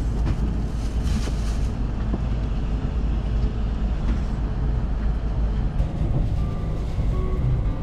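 Steady low rumble of a Shinkansen bullet train running, heard from inside the passenger cabin. About six seconds in, soft background music with held notes comes in over it.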